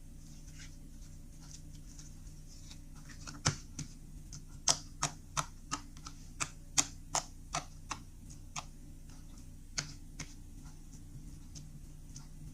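Slime being squeezed and pressed by hand, giving a run of sharp clicks and pops about three a second for several seconds, then two more.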